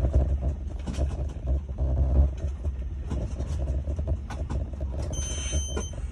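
Moving train heard from inside the driver's cab: a steady low running rumble with wheel-on-rail noise and irregular knocks and clicks. About five seconds in, a short high electronic beep sounds for under a second.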